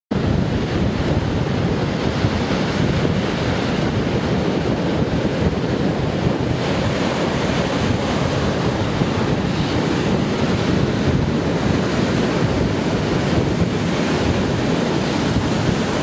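North Sea storm surf breaking and washing up a sandy beach, with strong wind buffeting the microphone in a steady low rumble.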